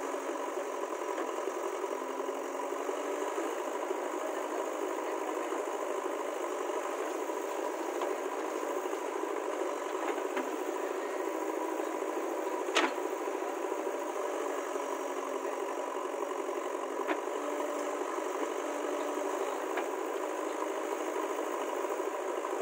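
Heavy machine's diesel engine running steadily, with a few sharp knocks over it; the loudest knock comes about halfway through.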